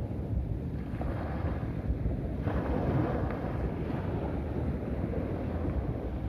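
Sea waves washing onto a beach, with wind buffeting the microphone in a heavy low rumble; a wave swells up about two and a half seconds in.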